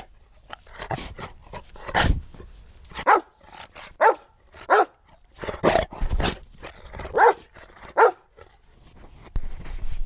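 A dog barking at close range, about eight barks roughly a second apart, with a sharp knock near the end.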